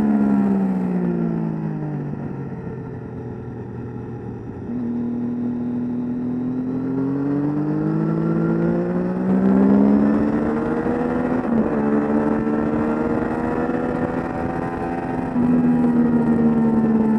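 Sport motorcycle engine heard from on board at speed on a race track. Its note falls as the bike slows for a turn, then climbs again as it accelerates, with a step in pitch partway through like a gear change and a louder surge near the end.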